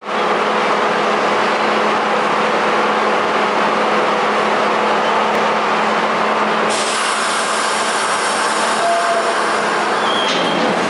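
R42 subway cars hauling refuse cars, pulling out of the station and picking up speed: a steady running noise over a low hum. About seven seconds in, higher ringing tones join as the cars pass close by.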